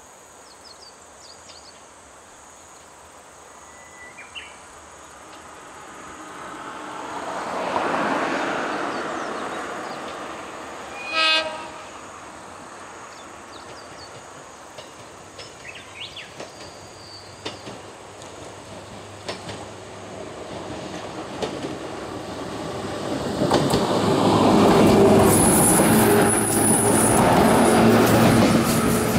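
A two-car JR 103 series electric train approaches and passes close by. It sounds one short horn blast about eleven seconds in, and its wheels click over the rail joints, growing loud near the end as the cars go past.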